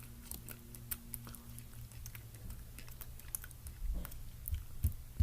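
A person chewing a mouthful of soft dragon fruit, faint small wet clicks of the mouth coming irregularly, with a few low bumps near the end.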